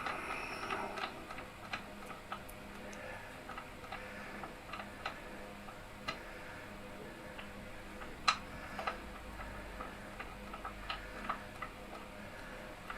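Ratchet wrench clicking in light, irregular ticks as a 13 mm bolt is loosened, with one sharper metallic click about eight seconds in.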